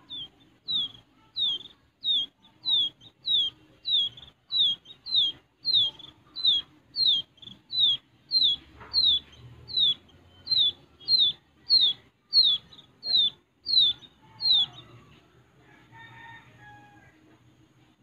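Wild quail chick peeping: a steady series of short, high peeps, each sliding down in pitch, nearly two a second, that stops about three-quarters of the way through.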